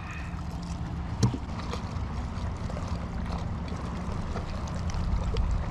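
Wind rumbling on the microphone aboard a fishing kayak, with a faint steady low hum underneath and one light knock about a second in.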